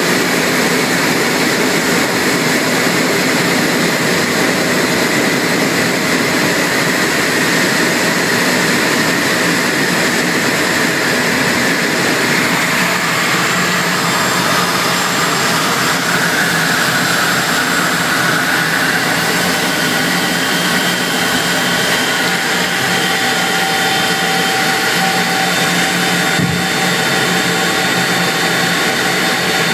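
Cockpit noise inside a two-seat Eurofighter Typhoon in flight: a steady loud rush of jet engine and airflow noise, with faint steady whining tones joining about two-thirds of the way through.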